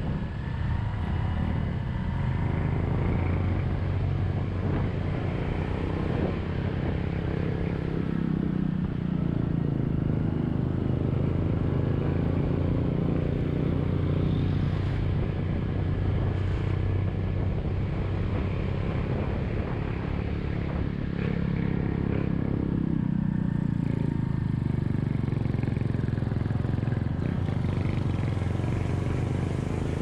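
Honda Click 125i scooter's single-cylinder engine running steadily under load, climbing a steep hill with a passenger aboard. The engine note swells and eases a little with the throttle, over road and wind noise.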